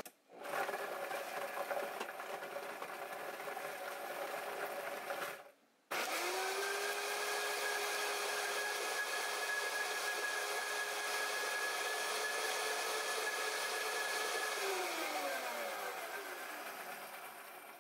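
Countertop blender chopping fresh chilies, garlic and cilantro in lime juice and sugar syrup into a sauce. It runs about five seconds, stops briefly, then runs at a steady pitch for about eight seconds before switching off and winding down with a falling whine.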